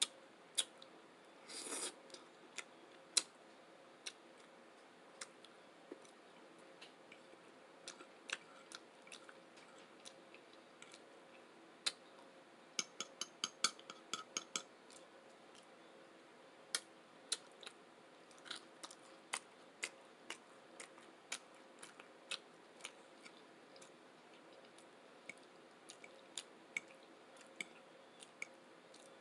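Close-miked eating sounds: chewing, with scattered sharp mouth clicks and smacks and a quick run of clicks about halfway through.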